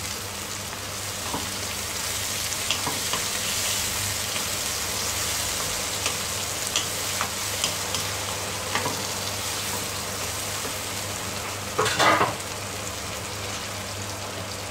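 Chopped tomatoes and onions sizzling in hot oil in a non-stick wok, with a steady frying hiss. A wooden spatula stirs and scrapes against the pan now and then, loudest about twelve seconds in.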